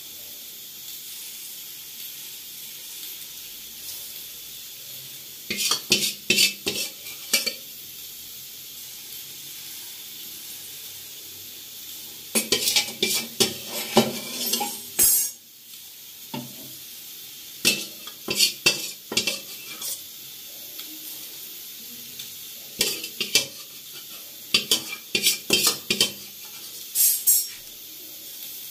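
Ashkaliya batter sizzling steadily in the cups of a multi-cavity appe pan on a gas stove. Four bursts of metal utensils clicking and scraping against the pan and bowl break in as batter is ladled in.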